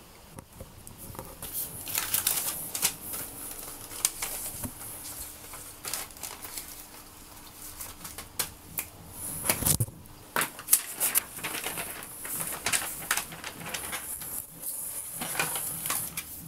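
Sheets of paper being handled and shuffled on a tiled floor: irregular crisp rustles and crinkles, with a heavier knock about ten seconds in.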